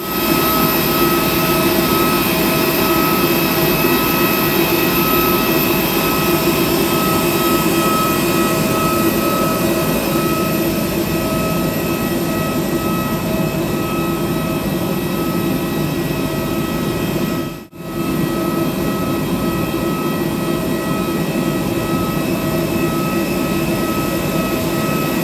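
Airbus A320-216's CFM56 turbofan jet engines running steadily: a loud, even rush of noise with a constant high whine, broken once by a brief gap about two-thirds of the way through.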